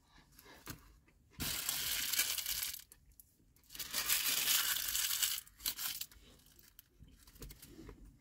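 Paper takeaway packaging being rustled and crumpled in two bursts of about a second and a half each, with a few lighter crackles near the end.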